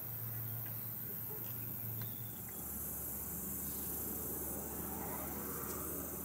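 Steady, high-pitched chorus of summer insects trilling, with a fast even pulsing.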